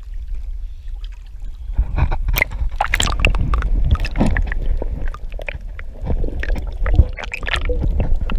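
Water splashing and sloshing close by as a large goliath grouper is handled and let go beside a kayak. A run of irregular splashes and knocks starts about two seconds in.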